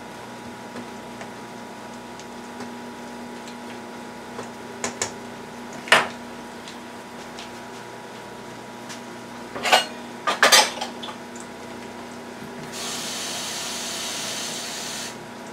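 Metal spoon and kitchenware clanking against each other a few times, the loudest knock about six seconds in, then a tap running water for about two seconds near the end, as a cup is filled to top up a boiling stew.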